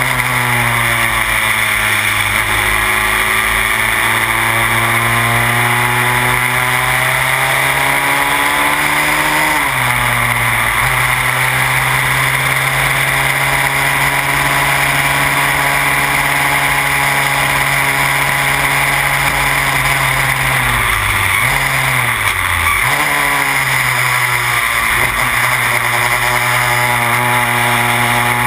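Onboard sound of a Van Diemen Formula Renault single-seater's engine running hard: the engine note climbs steadily, drops sharply with a gear change about a third of the way through, holds steady, then dips and jumps back up through a quick series of gear changes about three quarters of the way through.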